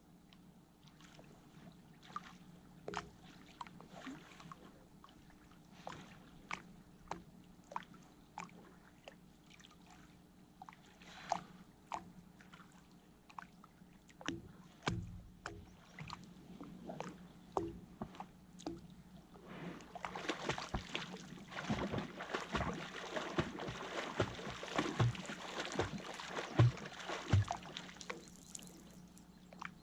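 River water splashing and sloshing around a person crossing a river: scattered small splashes at first, then a long stretch of steady, heavier splashing from about two-thirds of the way in that stops near the end.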